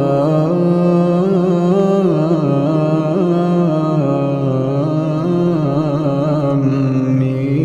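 Male Quran reciter chanting in tajwid style, drawing one long unbroken melodic phrase that slowly rises and falls in pitch.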